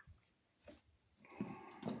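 Light clicks, then a short stretch of scraping and rubbing in the second half: hands and tools handling a wall receptacle and its wires.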